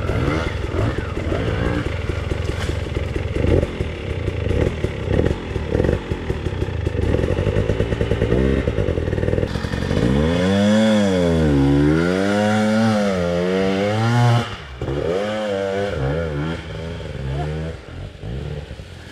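Two-stroke enduro dirt bike engine lugging at low revs, with clatter as the bike climbs over rocks. From about ten seconds in the throttle is blipped, so the engine note rises and falls in several swells, and it grows quieter near the end.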